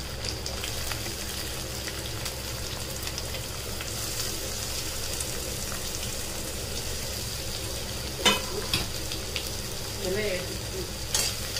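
Chopped onions, green chillies and curry leaves sizzling steadily in a little oil in an iron kadai. A few sharp clicks come about eight seconds in.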